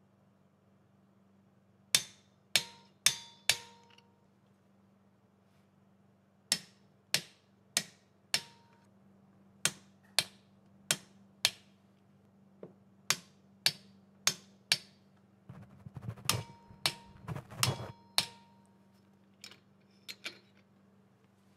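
Click-type torque wrench clicking as the cylinder head bolts are torqued down: about twenty sharp metallic clicks, in groups of about four half a second apart, some leaving a brief ring.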